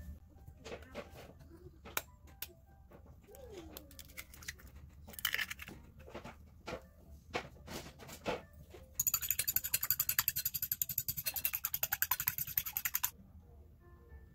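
Kitchen handling sounds from bowl and utensils: scattered taps and knocks, then about nine seconds in a rapid, even run of clicks lasting about four seconds, the loudest part, which stops suddenly.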